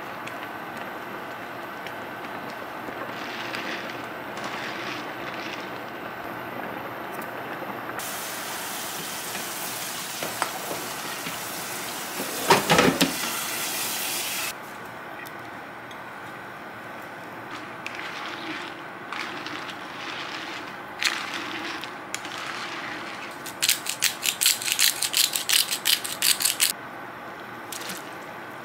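Kitchen sounds of cooking noodle soup: broth simmering with a soft hiss, then a kitchen tap running for about six seconds, with a loud clatter of cookware near the middle, as boiled kalguksu noodles are rinsed in cold water. About 23 seconds in comes a quick run of clattering knocks.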